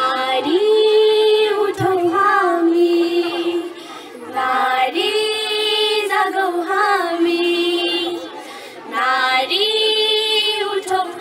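Young girls singing a Nepali song together into a microphone: three phrases of about four seconds each, with short breaks between them, each holding a long note and then stepping down to a lower one.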